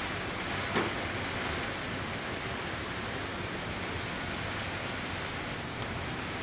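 Strong storm wind rushing steadily through a palm tree's fronds and buffeting the microphone, with one brief louder noise about a second in.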